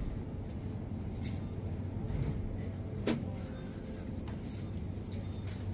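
Supermarket background noise: a steady low hum and rumble, with a few light clicks or knocks, the clearest about three seconds in.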